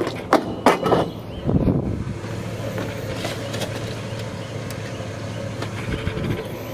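A few sharp metal clanks in the first second as scrap metal is tossed into a pickup truck bed, then a short rustle of handling. A steady engine hum runs underneath, like a truck idling.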